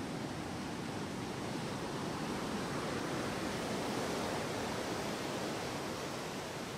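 Heavy surf: waves breaking and foaming whitewater rushing up a beach in a steady rush of noise, swelling a little about halfway through and easing near the end.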